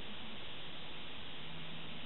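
Steady hiss of microphone and room noise, with a faint low hum underneath.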